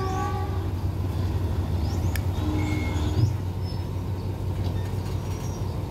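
Diesel-hauled passenger train standing at the platform, its engine running with a steady low drone, with a sharp click about two seconds in.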